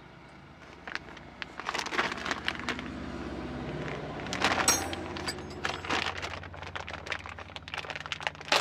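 Clear plastic bag around a new timing belt crinkling and crackling as it is handled, over the low steady hum of a vehicle running.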